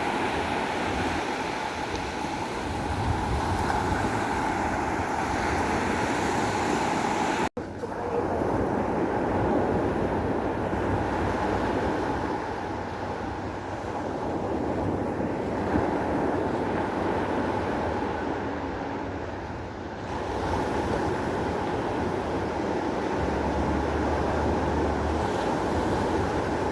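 Sea surf washing onto the shore, with wind rumbling on the microphone. The sound breaks off for an instant about seven seconds in, at a cut, then carries on the same.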